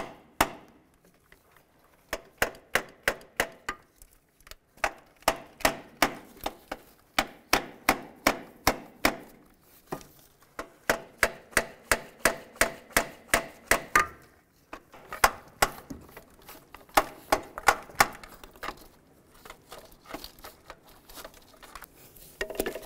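Hammer blows on a rusted starter motor to break it loose from the engine, struck in quick runs of about three a second with short pauses between the runs.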